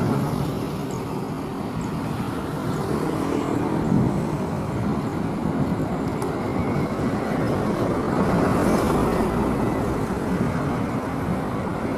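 Steady low rumble of an Airbus A350's Rolls-Royce Trent XWB jet engines as the airliner flies low toward and past, landing gear down.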